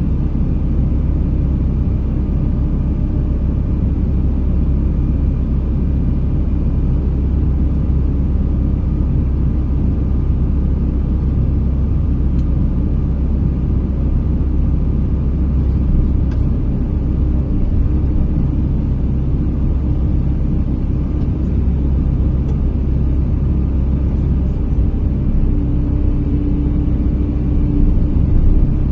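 Engine of a forestry crane running steadily with a low rumble; a steady higher tone joins in near the end.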